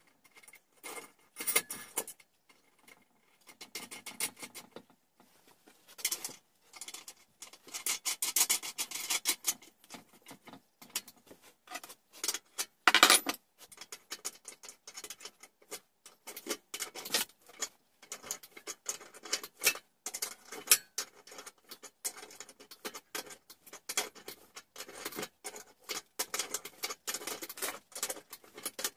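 Irregular clicks, taps and scrapes of hands and tools working on an old washing-machine motor fixed to a homemade wood lathe, with one louder scrape near the middle.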